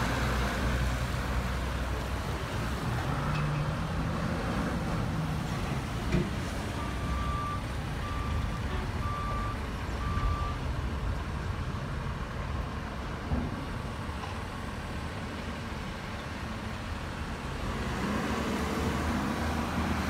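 Truck-yard background noise: a vehicle engine running with a steady low rumble, and a reversing alarm beeping four times about halfway through. A couple of brief knocks sound in between.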